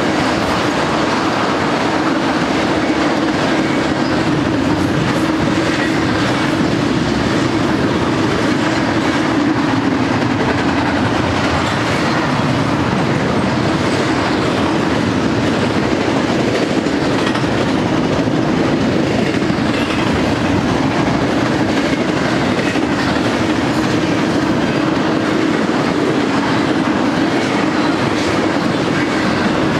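Union Pacific double-stack intermodal freight cars rolling past: a steady rumble of steel wheels on rail, with a low hum that holds level throughout.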